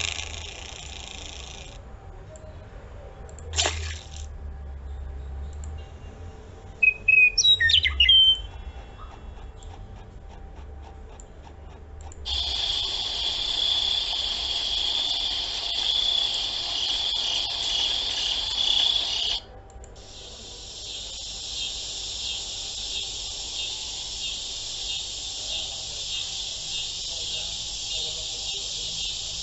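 High-pitched insect chirring in two long stretches, the second pulsing rapidly, with a short loud burst of bird-like chirps about eight seconds in.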